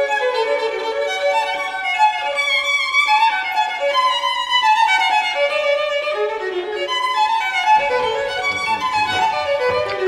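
Background music with a violin melody. About eight seconds in, a low rumble of room or handling noise comes in underneath.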